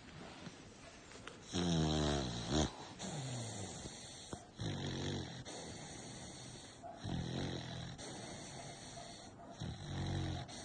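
American bully dog snoring loudly in its sleep: about five snores, one every two to three seconds, the first the loudest.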